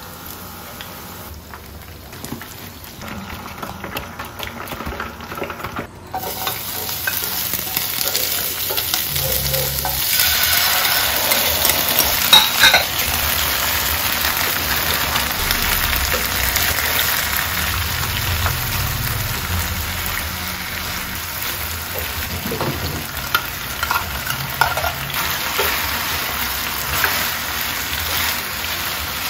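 Food frying in a pan: battered chicken pieces sizzling in hot oil, then, louder from about six seconds in, a pan of sauce with bell peppers and fried chicken sizzling as it is stirred with a wooden spatula, with a few light knocks of utensil against pan.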